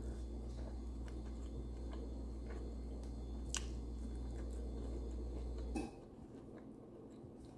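Faint eating sounds: a person chewing and picking food from a plate with her fingers, with a small sharp click about three and a half seconds in. Underneath is a steady low hum that cuts off suddenly near the end.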